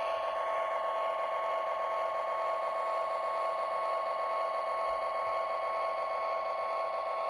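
Lionel LionChief Plus O gauge GP-7 model diesel locomotive running slowly along the track: a steady hum with two high tones held throughout.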